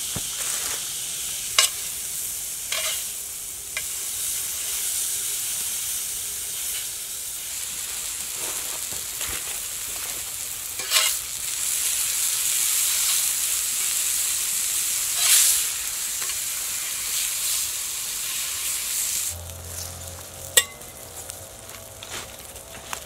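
Muskrat meat frying in a cast-iron skillet, a steady sizzle broken by a few sharp clicks of a metal spatula against the pan. A few seconds before the end the sizzle falls away to a much fainter level, with one more sharp click.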